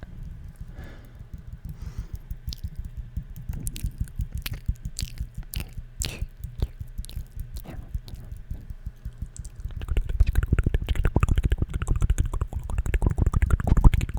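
Close-miked ASMR tapping and mouth sounds: scattered light taps and clicks, then about ten seconds in a faster, louder run of soft, rapid taps.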